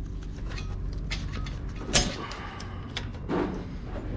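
Pliers gripping and prying a valve stem seal off the valve guide of an LS V8 cylinder head: a few light metal clicks and scrapes, the sharpest click about two seconds in, over a steady low hum.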